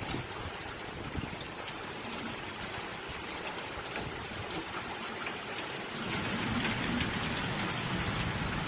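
Heavy hurricane rain pouring steadily, growing louder about six seconds in.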